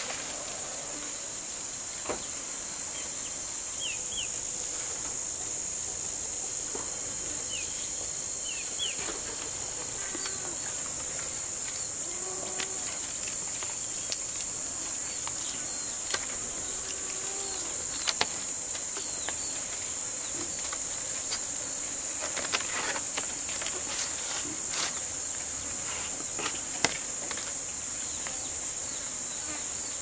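Steady high-pitched shrilling of insects, like crickets or cicadas, with scattered sharp clicks and rustles as leaf strips and bamboo are handled, and a few short chirps.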